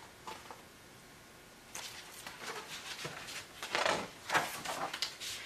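A picture book being handled and its pages turned. It starts nearly quiet, then from about a second and a half in comes a string of short paper rustles and soft knocks.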